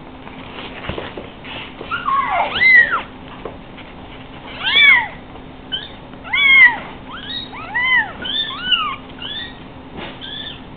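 Three-week-old Savannah kittens mewing: about a dozen short, high, thin calls, each rising and then falling in pitch. They begin about two seconds in and come every half second to a second.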